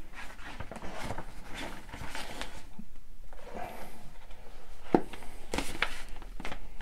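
A paper dust jacket rustling and a softcover book being handled as the jacket is wrapped around it, with scattered small clicks and a couple of sharper taps near the end.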